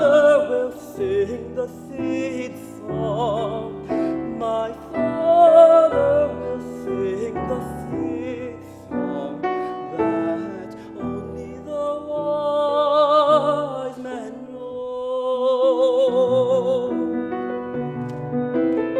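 Classical art song: a trained solo voice singing with vibrato over piano accompaniment, holding long notes about two-thirds of the way through and again near the end.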